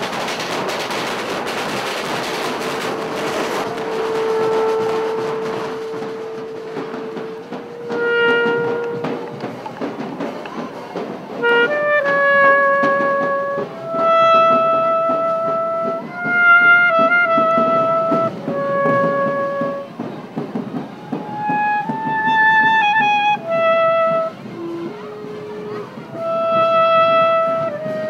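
Brass band playing a slow melody of long held notes, with a drum beating underneath. A noisy, hissing wash fills the first few seconds before the melody comes in.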